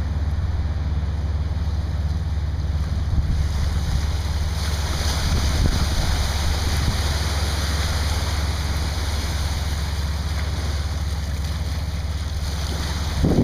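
Steady low rumble of a passing inland cargo ship, with wind buffeting the microphone. A broad hiss of wind and water grows louder about four seconds in.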